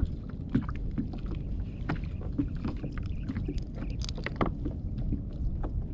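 Sea water lapping against a plastic kayak's hull under a steady low rumble of wind, with scattered small clicks and taps throughout.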